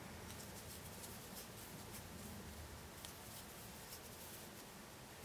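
Faint scratching and rustling of yarn being drawn through stitches with a crochet hook, in short scattered ticks over a low steady room hum.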